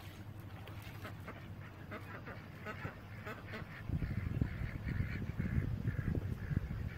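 Johnson 20 hp outboard motor running at idle, its low rumble getting louder and rougher about four seconds in, with waterfowl giving short repeated calls over it.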